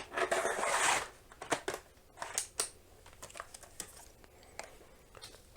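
A laptop being handled: a sliding scrape lasting about a second, then a scattering of light plastic clicks and taps.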